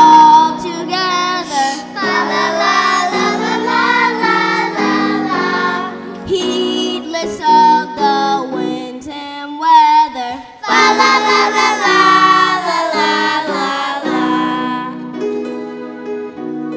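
Children singing with instrumental accompaniment, the voices holding long notes over steady chords; the singing thins out near the end, leaving mostly the accompaniment.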